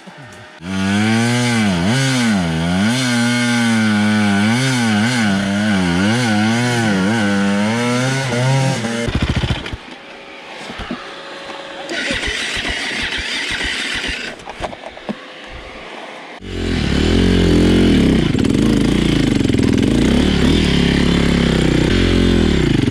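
Dirt bike engine revving up and down again and again as the bike is ridden. It drops to a quieter stretch about nine seconds in, then runs loud again from about sixteen seconds in.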